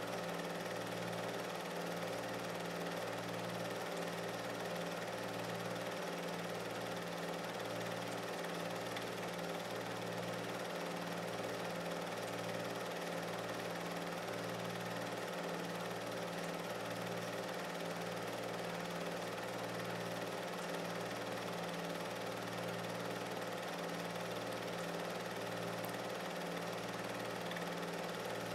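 A steady mechanical whir with a low hum that cuts in and out irregularly.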